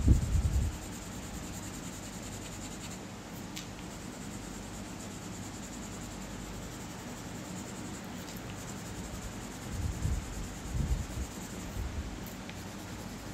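Coloured pencil scratching back and forth on paper as it shades in a drawing. A few soft low thuds come right at the start and again around ten seconds in.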